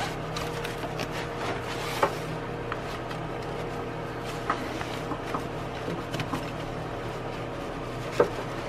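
A rubber timing belt being worked by hand off the sprockets and idlers of a Honda 3.5 L engine that is not running: a few light clicks and rustles over a steady low hum.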